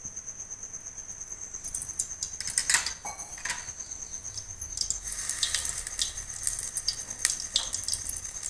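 Ghee heating in a kadai, sizzling and crackling with sharp pops from about two seconds in and a more steady sizzle from about halfway, with a few clinks of a small steel cup against the pan. A steady high-pitched pulsing tone runs underneath.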